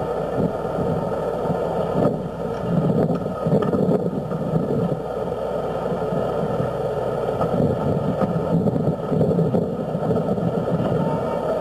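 Southern Pacific 4449, a 4-8-4 steam locomotive, working as it approaches: a rough, steady rushing noise with uneven surges, on a worn old film soundtrack.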